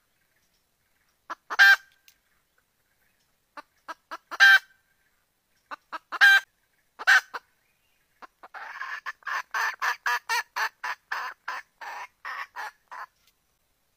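Red junglefowl hen calling for a rooster. First come four short, loud single calls a second or three apart, then from about halfway a fast run of clucks, about four a second, lasting four to five seconds.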